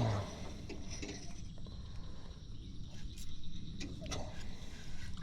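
Fishing reel being cranked while a hooked fish is brought in, with a few faint clicks and knocks, over a low steady rumble of wind.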